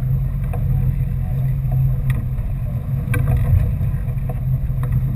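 Sportfishing boat's engine running steadily under way, a constant low hum with a rumble of water beneath it, and a few faint clicks.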